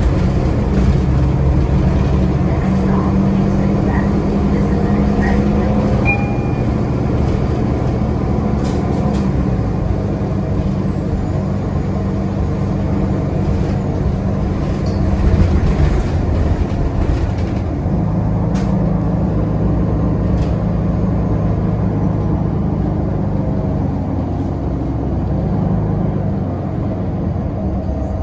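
Cabin sound of a Nova Bus LFS Artic diesel city bus under way: a steady low engine drone with road noise. The engine note eases off about ten seconds in and picks up again around eighteen seconds, as the bus changes speed.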